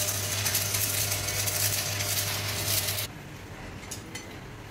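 Metal lathe running and cutting metal: a steady hum under a dense, crackling metallic hiss from the cut. It stops abruptly about three seconds in, leaving a quieter background with a few faint clicks.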